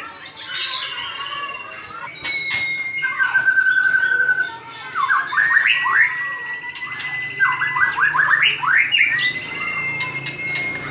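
White-rumped shama singing: long steady whistles held near one pitch, broken by quick runs of rising notes and a short trill, with a few sharp clicks.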